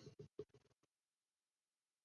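Near silence, with a few faint clicks in the first half second.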